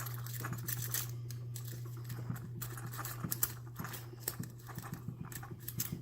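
Lock pick raking the pin tumblers of a 50 mm Steele brass-bodied padlock: a quick, irregular run of small clicks and scrapes as the rake works in and out of the keyway. A steady low hum runs underneath.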